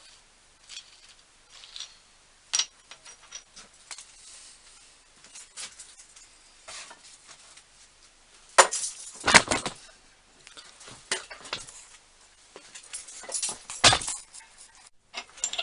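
Small metal clicks and clinks of a steel nut and bolt being handled, as a nut freshly tapped to 5/8 Whitworth is run onto a bolt. There are a few louder metal knocks about halfway through and again near the end.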